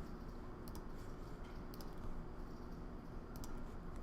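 A few faint computer mouse clicks, each a quick double tick of press and release, over a low steady hum.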